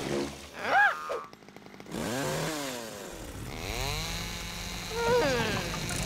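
Cartoon chainsaw sound effect: a rapid clicking, then the motor catches and runs, its pitch sweeping up and down in revs.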